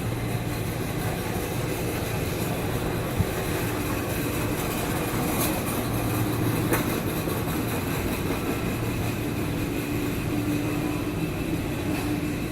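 Steady low hum and noise of a large store's background, with a single sharp click about three seconds in.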